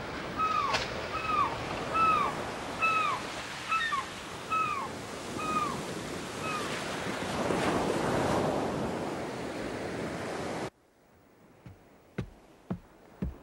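Surf washing on a beach, with seagulls giving a run of short, falling calls about every half second to second over the first five seconds or so. The surf swells, then cuts off suddenly, and a few faint knocks follow near the end.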